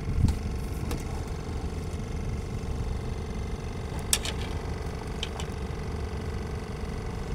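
Small wooden fishing boat's inboard engine running steadily, with a few light clicks and taps, the sharpest a quick cluster about four seconds in.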